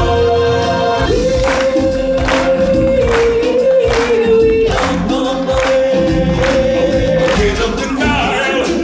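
Live stage-show music: a choir singing, holding one long note for several seconds over regular beats.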